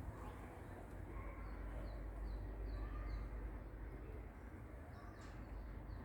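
A small bird chirping, short high notes repeated about twice a second in a run, then again near the end, over a low steady hum.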